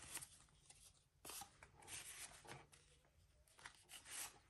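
Faint rustling and sliding of paper cards being tucked into the pocket of a leather ring-planner cover: several soft scrapes of paper on leather.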